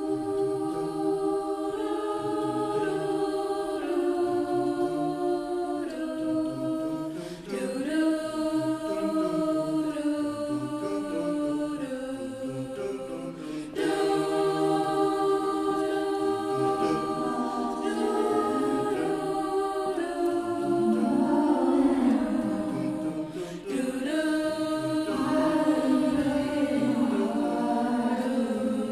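Mixed-voice vocal ensemble singing a cappella in close harmony, coming in all together out of silence and moving through held chords that change every second or two.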